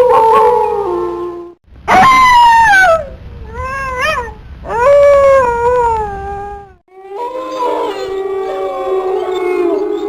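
Wolves howling. First come single long howls that slide down in pitch, with a short wavering note between them, broken by two abrupt gaps; from about seven seconds in, several wolves howl together in overlapping chorus.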